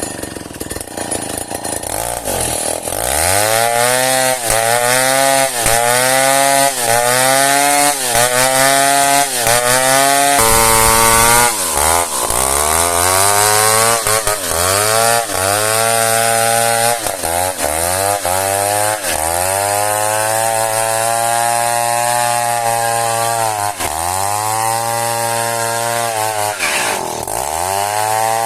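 Chainsaw cutting into a log of old merbau hardwood. Its engine note dips and recovers about once a second for several seconds, then holds steadier with a dip every few seconds.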